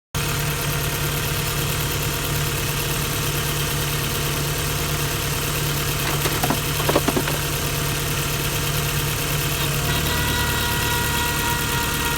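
2001 VW Jetta Mk4's 2.0-litre four-cylinder engine idling steadily, with a short cluster of light knocks about seven seconds in.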